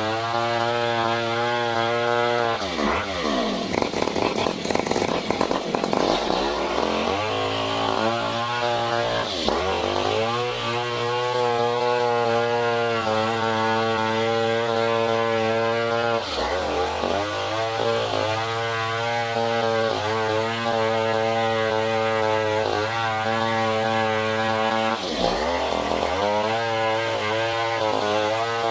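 Stihl 070 two-stroke chainsaw running hard at high revs. The engine note dips and recovers four times as the revs drop briefly.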